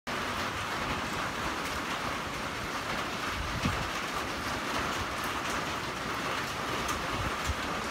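Steady rain falling on a porch roof and wet paving, with a few drips standing out and one soft thump a few seconds in.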